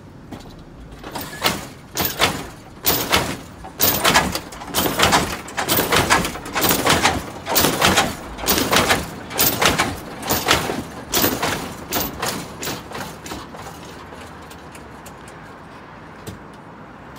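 Lowrider sedan hopping on hydraulic suspension: a fast run of metallic clunks and bangs, about two a second, as the front end is thrown up and slams back down. The bangs die away near the end.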